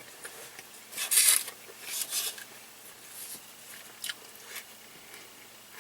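Eating sounds close to the microphone: a few short, raspy crunches and rustles, the loudest about a second in and another about two seconds in, then fainter ones.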